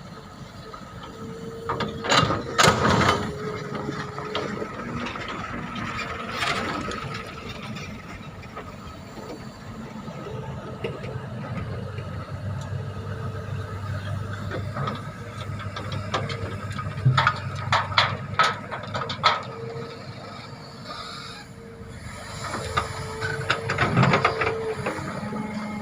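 Excavator at work: its diesel engine runs steadily under a held hydraulic whine, with a series of sharp clanks and knocks, a cluster about two seconds in, another near the middle, and one near the end.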